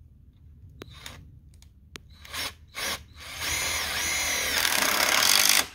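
Cordless drill driving a drill-point screw through aluminum wiggle-wire channel into a wooden 2x4: a few light clicks, two short trigger pulses, then a run of about two and a half seconds with a steady motor whine that stops suddenly at the end.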